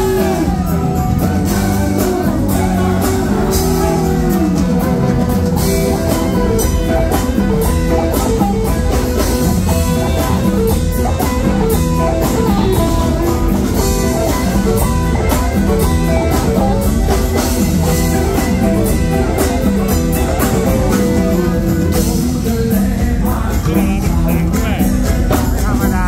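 Live rock band playing loud through the PA: electric guitars over bass and a steady beat, with some singing near the start.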